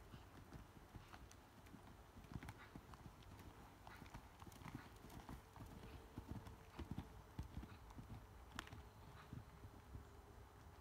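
Faint, muffled hoofbeats of a ridden horse moving on a sand arena surface: irregular dull thuds.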